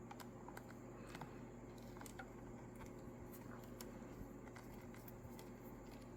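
Faint scattered ticks and clicks of a small screwdriver working the tiny screws out of a handheld console's casing, over a low steady hum.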